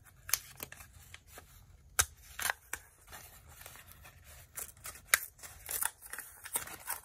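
Small kraft-paper packet being handled and opened by hand: crinkling paper with scattered sharp crackles and snaps, one louder snap about two seconds in and a busier run of crackles around five to six seconds.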